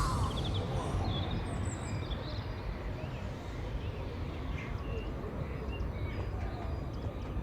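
Scattered short bird chirps over a steady low rumble of outdoor noise.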